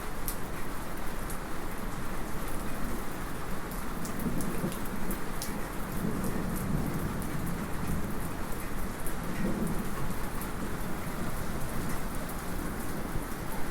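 Light rain falling steadily as heard from inside a house, with a small metallic drip ticking sharply again and again. A low roll of distant thunder swells through the middle and fades.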